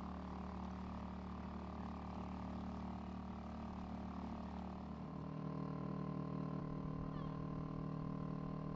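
Steady motor hum made of several fixed pitches, stepping to a slightly different pitch about five seconds in.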